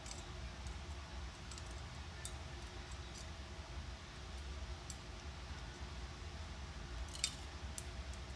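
Light metallic clicks of a hook tool picking the small valve keepers out from around the valve stem and spring retainer. The clicks are scattered and faint, with a sharper cluster about seven seconds in, over a steady low hum.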